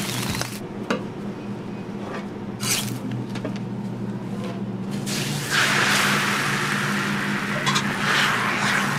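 Beaten egg sizzling on a hot flat-top griddle, starting about halfway through and getting louder as it spreads. Before that there are only a few light handling clicks, with a steady low hum underneath throughout.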